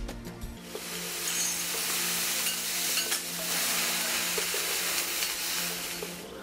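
Food sizzling on a hot steel teppanyaki griddle, a steady hiss that starts about half a second in and cuts off abruptly near the end.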